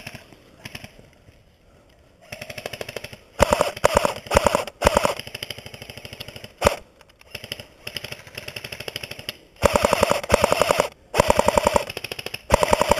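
Airsoft electric guns firing full-auto bursts: rapid trains of clicks, some loud and some fainter. The bursts start a couple of seconds in and are loudest in two spells, around 4 s and from about 10 s on.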